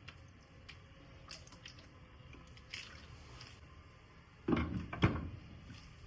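Kitchen handling sounds: scattered soft clicks and taps, then a louder cluster of knocks about four and a half seconds in.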